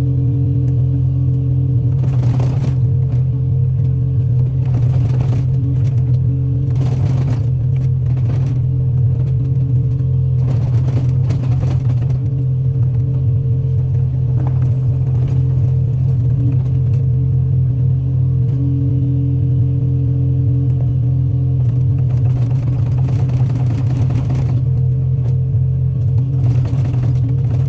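Excavator's diesel engine running steadily with a deep, constant drone, with short noisy bursts now and then.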